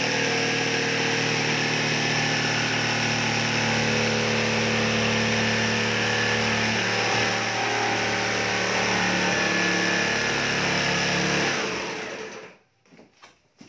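Corded oscillating multi-tool running steadily with its blade working across a plywood sheet, a buzzing motor whine whose pitch wavers a little. About twelve seconds in it is switched off and quickly runs down, leaving near quiet with a few faint clicks.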